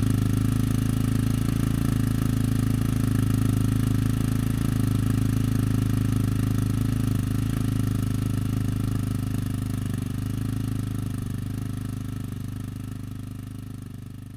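Yamaha XT660Z's single-cylinder four-stroke engine held steady at about 3000 rpm, heard at the tailpipe through a Dominator exhaust fitted with the hard dB killer and a catalytic converter. The exhaust note stays even, then fades out over the last few seconds.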